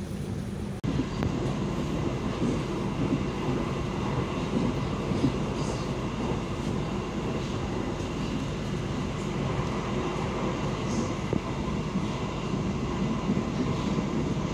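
KA Maharani passenger train running along the rails, a steady rumble with a few faint clicks. It starts about a second in, after a brief dropout.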